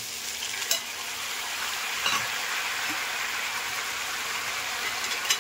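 Sliced onions and green chillies sizzling steadily in oil and butter in a steel kadhai as sliced tomatoes go in, with two short metal clinks, about a second in and near the end.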